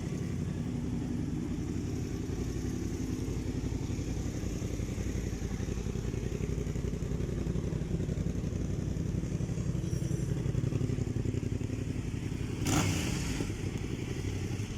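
First-generation Yamaha MT-07's parallel-twin engine running steadily at idle. About two seconds before the end there is a short burst of noise.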